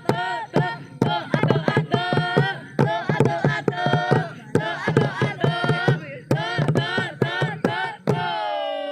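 Percussion group playing, with sharp drum strikes several times a second over a steady low drone. A singing voice runs over the beat and ends on a long held note near the end.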